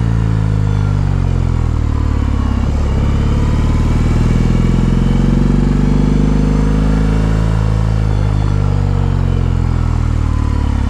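BMW R18 motorcycle's big boxer-twin engine running under way, its note dipping slightly, then climbing gradually through the middle and easing back down near the end.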